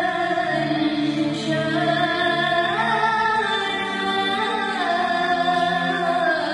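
A young girl singing a hymn to the Virgin Mary, her solo voice sliding and wavering in pitch, over a low held tone underneath.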